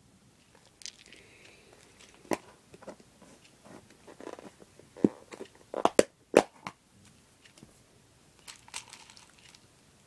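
Small plastic fuse beads being handled: rustling and rattling, with a scatter of sharp clicks, the loudest about six seconds in.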